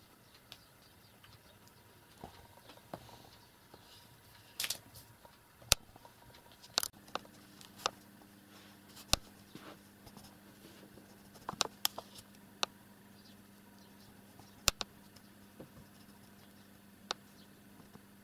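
Scattered sharp clicks and taps, a dozen or so at uneven intervals, the loudest about six, nine and fifteen seconds in. A faint steady low hum comes in about seven seconds in.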